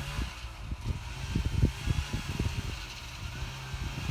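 Snowmobile engine idling with a steady low hum, overlaid by irregular low thumps.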